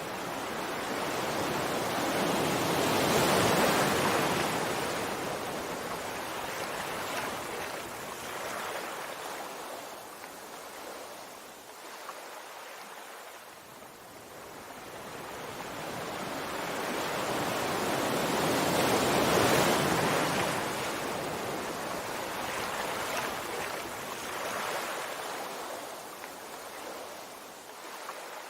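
Sea waves breaking and washing up a shore: two slow swells of surf, one peaking about three seconds in and another just past the middle, each ebbing back to a softer hiss.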